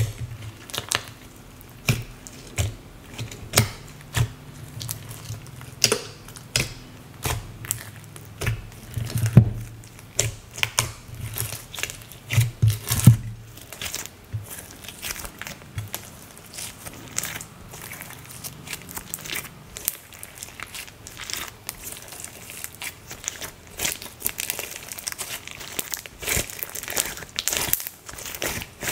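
Hands squishing, squeezing and stretching a lump of glossy slime with beads and charms mixed in, giving a steady run of irregular wet clicks, pops and crackles. A few louder low thumps come in the first half.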